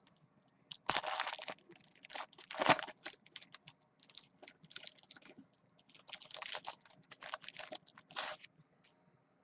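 A pack of trading cards being torn open and the cards handled: the wrapper crinkling and tearing, and cards clicking and sliding against each other in scattered bursts, loudest about three seconds in.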